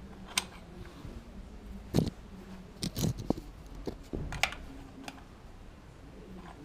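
Irregular metallic clicks and knocks of a wrench working the lock nut on a motorcycle's chain adjuster bolt, tightening it against the swingarm so the adjustment holds; a cluster of clicks comes about three seconds in.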